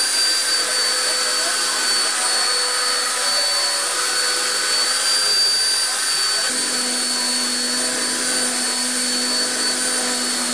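Immersion (stick) blender running steadily in a stainless-steel saucepan, puréeing radish-leaf velouté with butter until it is smooth. A high motor whine runs throughout, and a lower hum joins about six and a half seconds in.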